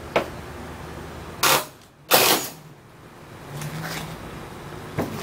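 A sharp click, then two short loud bursts of noise about a second and a half and two seconds in. After them a cordless drill runs briefly, driving a screw into the wooden frame, about three and a half seconds in.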